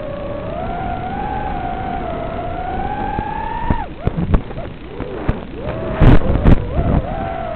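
5-inch FPV quadcopter's motors whining in flight, the pitch rising slowly with throttle, then cutting off sharply a little before four seconds in. After a few short motor blips come two loud sharp hits about six and six-and-a-half seconds in as the quad strikes the ground, and the motor whine picks up again near the end.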